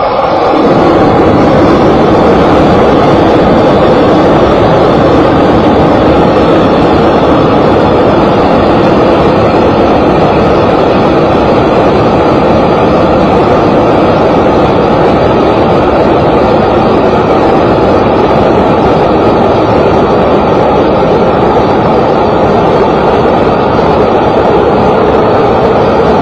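Hose-fed gas blowtorch burning with a loud, steady rushing noise, building up in the first second and then holding level.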